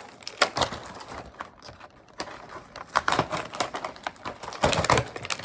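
Packaging being worked open by hand: irregular clicks, snaps and rustling of plastic and cardboard, with a denser cluster of clatter near the end.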